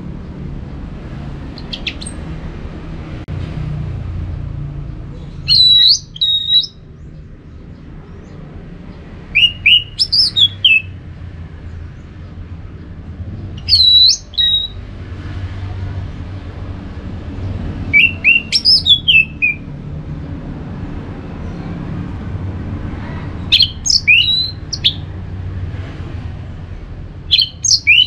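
Caged orange-headed thrush (anis merah) singing: six short whistled phrases about four seconds apart, each a quick run of high, sweeping notes.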